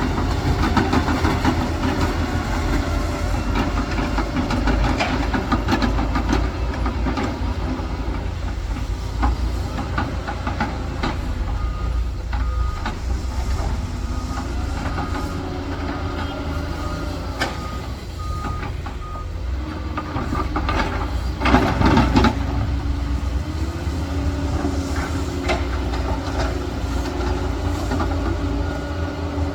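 Doosan excavator's diesel engine running under load with its hydraulics working, making a steady low rumble with shifting whining tones. Scattered metallic clanks run through it, with one louder clatter about two-thirds of the way through.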